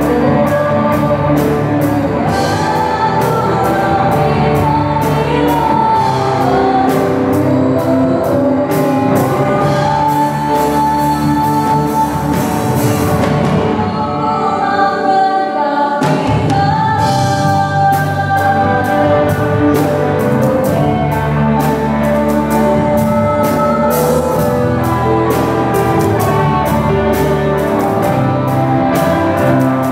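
Live band playing a song: a woman sings into a microphone over electric guitars, bass guitar, keyboard and drum kit with a steady beat. About halfway through, the drums and low end drop out for a couple of seconds, then the full band comes back in.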